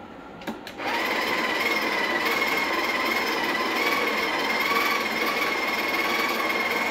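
Espresso machine's built-in coffee grinder running steadily for about seven seconds as it grinds a single dose of coffee, starting about a second in after a couple of light clicks.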